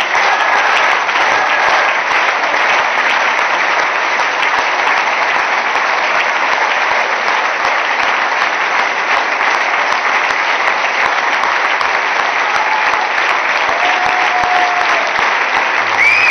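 Loud, sustained applause from a large audience of delegates clapping: an ovation at the end of a speech.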